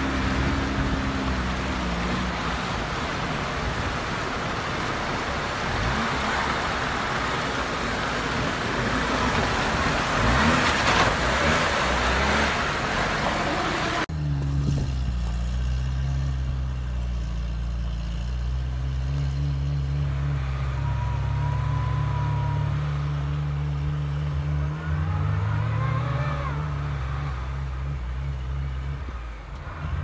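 Swollen mountain stream rushing loudly over stones, with a Lada Niva's engine low beneath it. About halfway through, this cuts to a Daihatsu Feroza's engine running at low revs as the 4x4 creeps over old, packed snow, the revs rising and falling briefly near the end.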